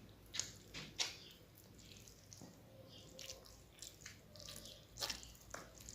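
Soft wet squishes and clicks of moist stuffing being pressed by hand into a raw chicken, a few quick ones about half a second to a second in and a couple more near the end.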